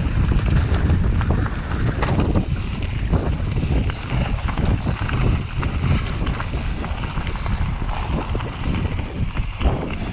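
Wind buffeting the microphone of a camera on a mountain bike descending a rocky gravel trail, with the crunch of tyres on stones and many short clicks and rattles from the bike over the bumps.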